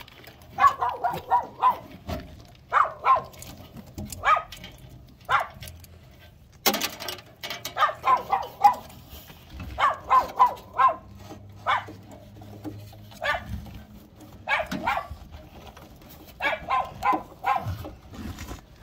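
A dog barking again and again in quick runs of two to five barks, with pauses between the runs. A single sharp knock about seven seconds in.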